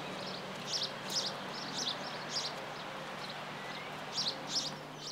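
Songbird singing outdoors: a run of short, high chirps about two a second, over steady background noise and a faint low hum.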